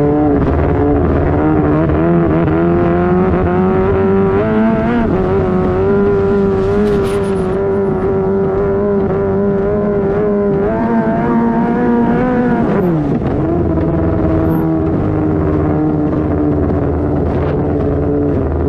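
A Thai long-tail drag boat's 500-horsepower 13B rotary petrol engine running hard at speed, heard from the bow. The revs climb over the first few seconds, hold steady, rise briefly a little past halfway, then drop sharply and pick back up to a steady run.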